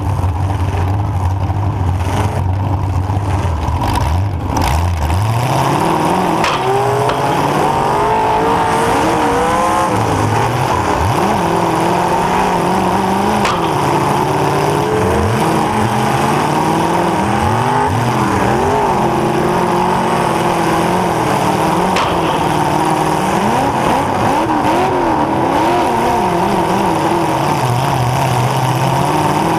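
Demolition derby car's engine heard from on board, revving up and down over and over as the car accelerates and backs off, with a few sharp knocks along the way.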